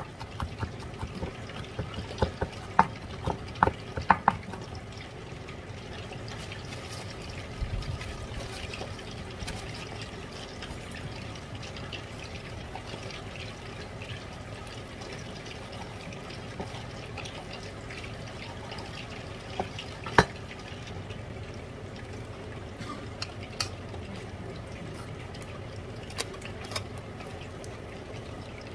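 Chef's knife chopping garlic cloves on a wooden cutting board: a quick run of sharp knocks in the first few seconds. Then quieter knife work on raw chicken breast over a steady hiss, with a few scattered knocks, the loudest about twenty seconds in.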